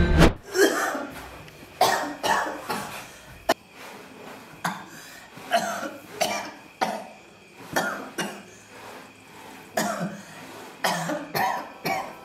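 A man coughing again and again in short fits, as if choking.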